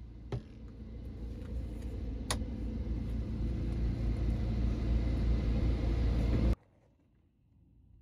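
A low rumble, like a vehicle running nearby, growing steadily louder, with two sharp clicks, one just after the start and one about two seconds in. It cuts off suddenly near the end.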